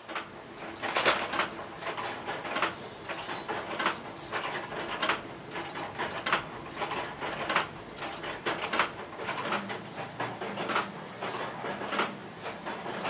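Wire-fed chain-making machine running: a busy stream of metallic clicks and clacks, the louder ones coming about once or twice a second, over a faint steady hum.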